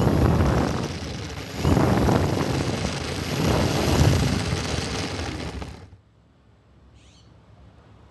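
RC airplane's motor and wind rush on its onboard microphone, loud and coming in surges as the plane skims along the asphalt, cutting off abruptly about six seconds in as the plane comes to rest. A brief faint high chirp follows about a second later.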